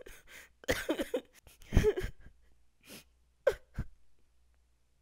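A man sobbing theatrically in mock grief: a few short, choked gasps and cries, the loudest about two seconds in.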